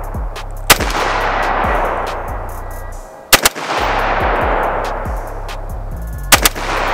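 Custom AR-15 rifle with a 16-inch barrel and a SureFire WarComp muzzle brake firing at a slow pace. There is one shot about a second in, then a quick pair at about three and a half seconds and another quick pair near the end, over background music.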